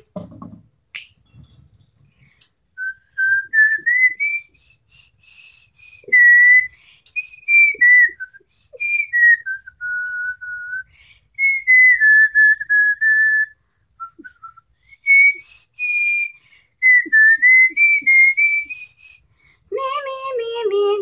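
A woman tooth-whistling a melody: a single clear tone stepping and gliding up and down through short notes and phrases, with a few brief pauses between phrases.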